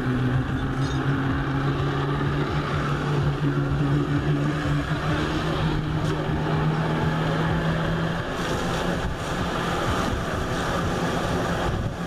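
Jet ski engine running and revving up to drive a flyboard's water jet. Its pitch climbs over the first several seconds, then the tone fades under a rushing hiss of spray.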